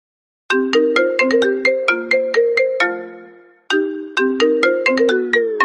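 iPhone ringtone playing: a bright melody of short mallet-like notes, about four a second. It starts about half a second in, fades out after one phrase and starts over, and near the end its pitch slides downward.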